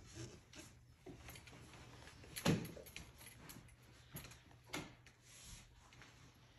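A few faint knocks and clicks in a room, the loudest about two and a half seconds in and another just before five seconds.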